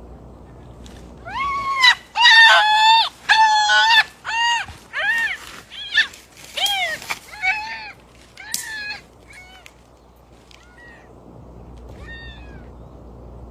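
An animal crying out in a rapid series of loud, high-pitched calls, each rising and falling in pitch, about a dozen in a row, followed by a few fainter calls near the end.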